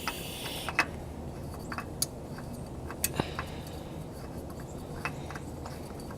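A few light, scattered metallic clicks and taps of small parts being handled by hand while fitting an oil filter and drain plug under a car, over a steady low hum.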